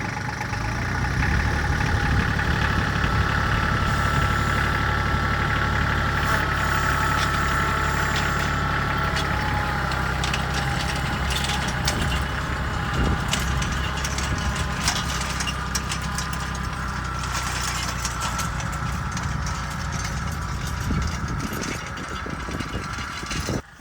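Tractor engine running steadily while pulling an old drag harrow over rough ground, with scattered clicks and clanks from about ten seconds in.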